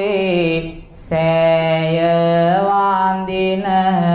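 A male Buddhist monk chanting a Sinhala devotional blessing verse solo into a microphone, in a slow melodic style of long held notes that step from one pitch to the next. About a second in he breaks off briefly for breath, with a short hissing consonant, then carries on.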